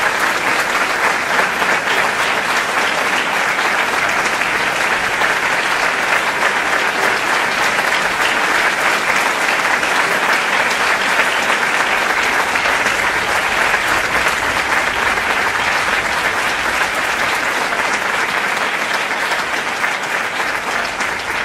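Audience applause: many people clapping steadily and densely, easing off a little near the end.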